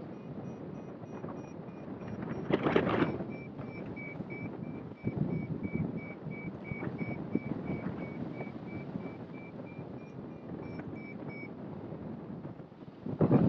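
Wind rushing over the microphone of a hang glider in flight, with a strong gust about two to three seconds in. Beneath it a variometer gives quick repeated high beeps, a few a second, which is its climb signal in lift, and the beeping stops near the end.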